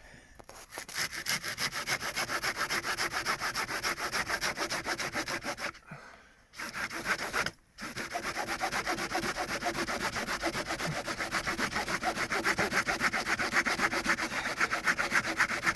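Hand saw cutting through a wooden log in fast, steady back-and-forth strokes, with two brief pauses about six and seven and a half seconds in.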